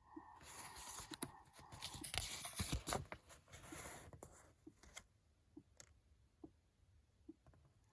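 A Lulla sleep-companion doll's sound unit playing a recorded heartbeat, soft and slow at a little over one beat a second. In about the first half a longer breathing sound, a whoosh of breath in and out, plays over it.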